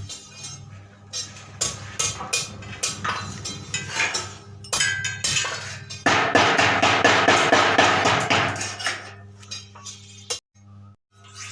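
Sharp metal knocks and clinks over the steady hum of an arc-welding transformer. About six seconds in, a dense crackling lasts some three seconds, typical of a stick-welding arc burning.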